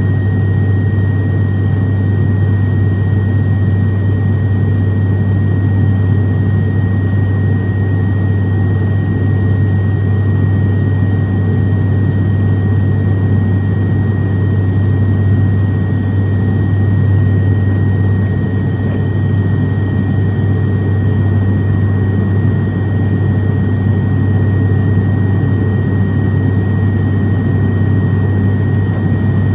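ATR 72 turboprop airliner heard inside the cabin beside the engine in flight: a steady, unbroken low propeller drone with a thin steady high tone above it.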